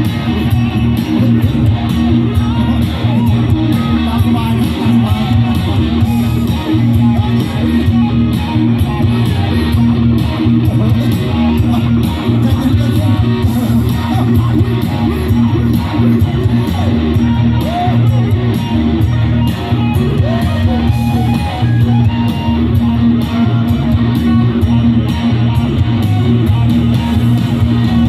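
Live rock band playing loudly, with electric guitar and bass to the fore.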